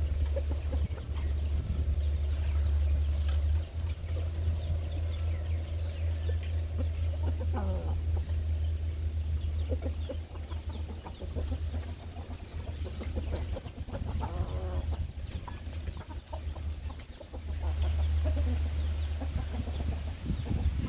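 Young roosters clucking with scattered short calls, a few of them sliding down in pitch, over a steady low rumble.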